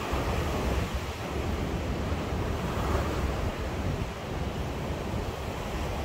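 Ocean surf washing ashore in a steady breeze, with wind buffeting the microphone as a low rumble.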